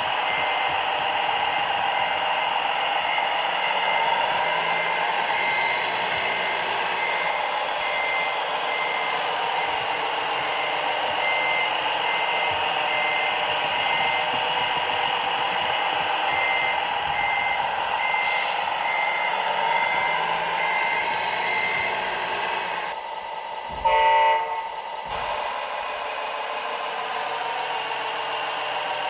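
A vehicle's reversing alarm beeping repeatedly over steady engine and machine noise. The beeping stops about three-quarters of the way through, and a short, loud horn toot follows.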